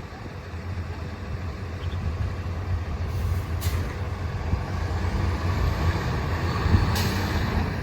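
Heavy fire truck's engine running and growing gradually louder as it approaches, with two brief sharp sounds partway through.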